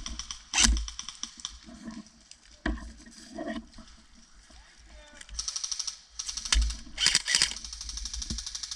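Airsoft rifle firing rapid full-auto bursts of sharp clicks: one short burst right at the start and more bursts past the middle, the loudest near the end.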